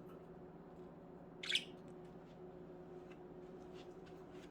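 A single short budgerigar chirp about a second and a half in, over a steady low hum.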